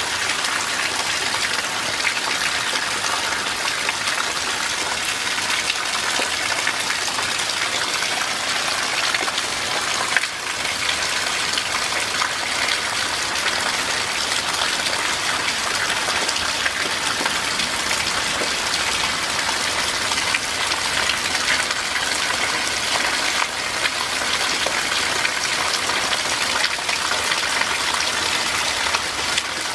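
Steady rain falling, an even, unbroken sound of many drops, with one sharper single drop about ten seconds in.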